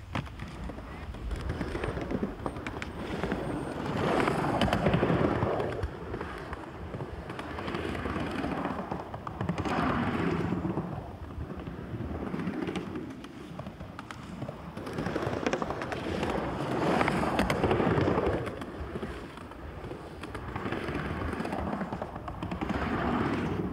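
Skateboard wheels rolling over the humps and berms of a pump track. The rolling noise swells and fades every few seconds as the rider comes near and moves away, with scattered clacks.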